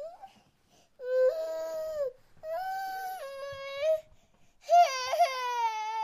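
Baby crying: a brief whimper at the start, then three long wailing cries with short pauses for breath between them.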